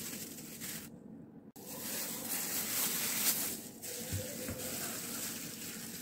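Wet squishing and squelching of raw lamb pieces being rubbed with salt and turmeric by hands in plastic gloves in a stainless steel bowl. The sound cuts out briefly about a second in.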